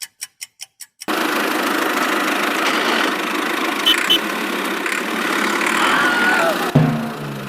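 Quick even ticking for about the first second, then a small engine running with a dense, rattly noise, which cuts off suddenly near the end into a lower steady hum.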